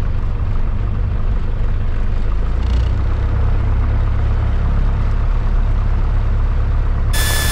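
Single-engine light aircraft's piston engine and propeller running at low taxi power, heard from inside the cockpit as a steady low drone.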